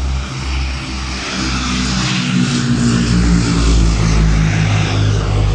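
de Havilland Canada DHC-5 Buffalo's twin turboprop engines and propellers at takeoff power as it climbs out and passes close by. The sound grows louder towards the middle, and its propeller tones fall in pitch as the aircraft goes past.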